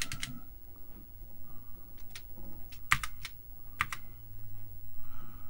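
Key Tronic parallel ASCII keyboard with foam-and-foil pad key switches being typed on: scattered keystroke clicks, one or two at a time with pauses between, over a faint steady hum.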